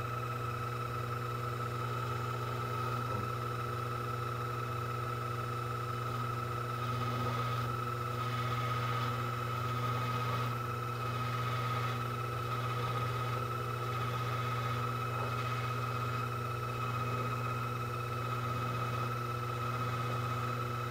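Sherline CNC chucker lathe running a turning cycle, its tool cutting the spinning part: a steady low hum with a steady high whine over it.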